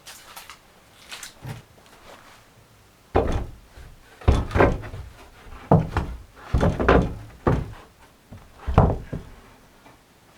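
A series of heavy knocks and thumps, about seven over six seconds, after a few light clicks at the start.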